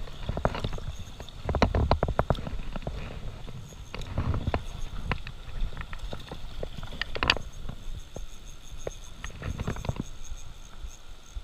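Close handling noise from a wading angler's spinning rod and reel: irregular clusters of clicks and taps over a rumbly wash of water moving around the camera.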